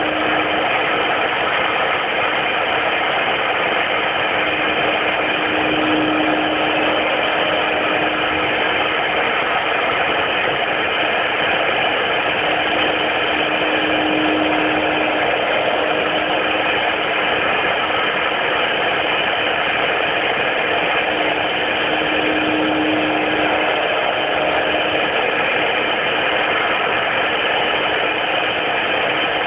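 CNC router spindle running steadily while its bit engraves and cuts grooves in a rubber sheet. It makes an even machine noise with a steady tone that swells briefly every eight seconds or so.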